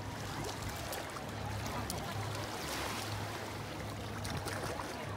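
Steady rush of water with a constant low hum underneath and a few faint clicks.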